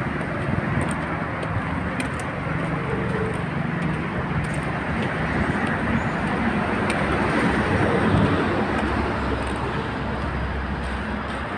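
Road traffic noise: a steady wash of vehicle and engine sound with a low hum underneath, swelling slightly around the middle.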